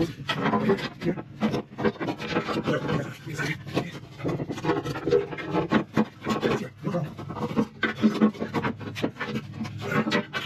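Rapid, irregular clicking and scraping of hand work on metal and plastic transmission parts, over a steady low hum.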